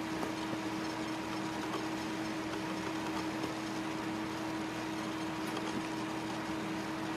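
A steady hum with hiss and a constant low tone, unchanging throughout, like a fan or appliance running.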